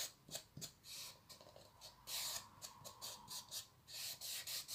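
Fingers rubbing along silver washi tape to press it down onto the edge of a small wooden crate: a few faint, short rubbing swishes with small ticks between them.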